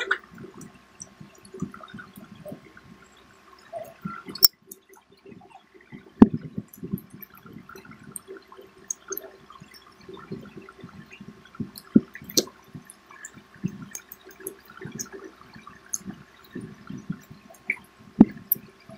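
Close-up eating sounds of people chewing fried snacks: irregular wet mouth noises and small ticks, with a few sharp clicks scattered through.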